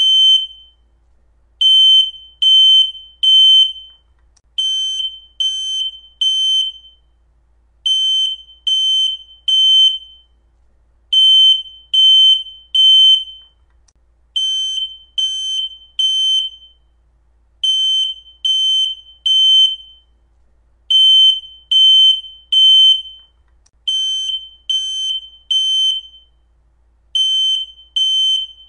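Smoke alarm sounding its full alarm: loud, high-pitched beeps in groups of three with a short pause after each group, repeating evenly. This temporal-three pattern is the standard smoke or fire evacuation signal, not a low-battery chirp.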